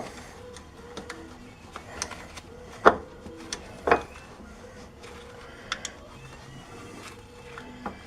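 Light metal clicks and clinks of brake pads and their retaining clip being fitted into an ATV's disc brake caliper, with two louder knocks about three and four seconds in.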